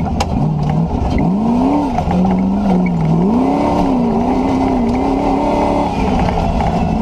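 Land Rover's 4.6-litre V8 engine under hard driving, the revs climbing about a second in, dropping back near three seconds, then rising again and wavering up and down. A few sharp knocks come right at the start.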